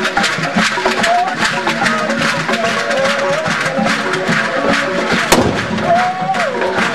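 Traditional Cameroonian drumming and percussion playing a fast, steady beat with sharp wood-block-like strikes, over voices of a crowd and singers. A single sharp crack cuts through about five seconds in.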